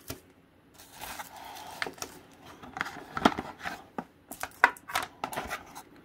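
Plastic bag and wrapping rustling and crinkling as parts are unpacked from a cardboard box, then a string of light clicks and knocks as cables and parts are set down on a table.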